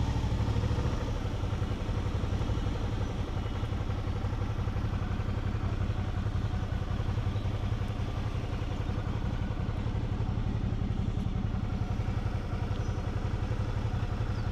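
Motorcycle engine idling steadily with an even, rapid pulse while the bike rolls slowly.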